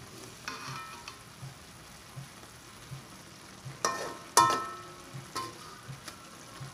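Chili balado sauce sizzling and simmering in a wok around fried mackerel, with a spatula scraping and knocking against the wok a few times, loudest a little over four seconds in.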